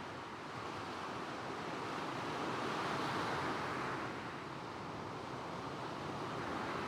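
Gentle sea waves breaking and washing across a stony shingle beach, with soft coastal wind. The surf swells to a peak about halfway through, eases, then rises again near the end.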